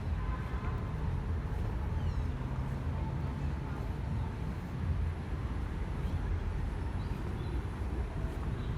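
City outdoor ambience: a steady low rumble of traffic, with faint voices and a few short, high calls over it.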